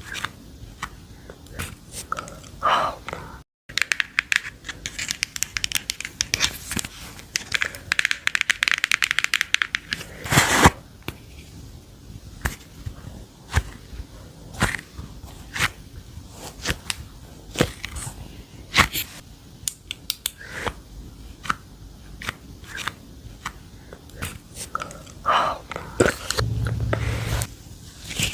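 Close-miked crackling, scraping and tapping as a bao bun squishy toy is handled and squeezed, with a dense run of crackling for several seconds and one sharper knock partway through.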